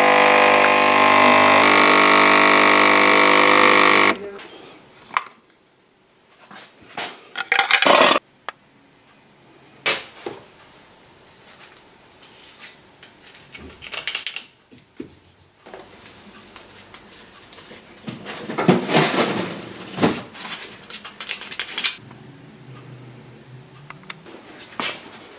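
Nespresso capsule machine's pump buzzing steadily while brewing a coffee, cutting off suddenly after about four seconds. After that come scattered knocks, clicks and scraping as used coffee capsules are opened and their grounds emptied into a metal container.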